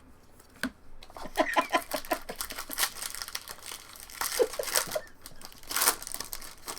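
Plastic trading-card pack wrappers being torn open and crinkled: a run of crackles and rips, with a louder burst near the end.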